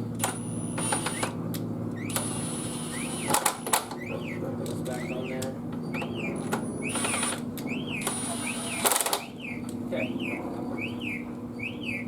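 Metal clinks and rattles of tools and parts being handled during work on motorcycle forks, with sharp knocks about three and a half seconds in and near nine seconds. Behind them a bird chirps a short rising-and-falling note over and over, about twice a second.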